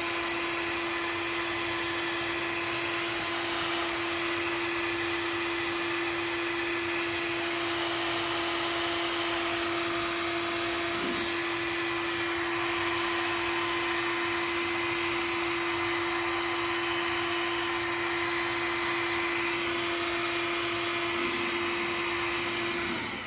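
Heat gun running steadily on high, a blower noise with a constant hum and a thin high whine, switched off near the end.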